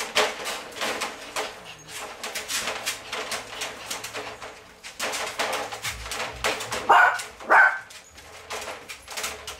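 Puppies playing in a wire crate: scuffling and scratching with soft puppy growls, and two short, sharp yips about seven seconds in.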